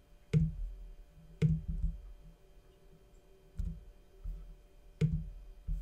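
Computer mouse clicking in a file dialog: a few sharp clicks spaced seconds apart, with soft low thumps between them.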